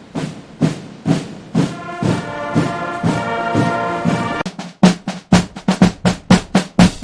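Brass and drum band playing: a few drum strikes, then a held brass chord, then a run of sharp accented hits with the drums, about three a second, in the last couple of seconds.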